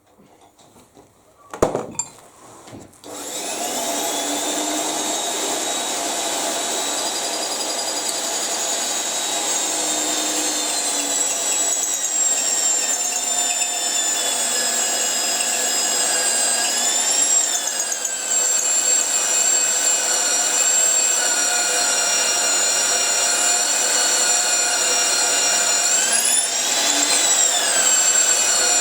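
Titan PMD 16 magnetic-base drill: a click, then about three seconds in its motor starts and runs with a steady high-pitched whine while drilling into metal. The pitch dips and recovers twice, once in the middle and once near the end.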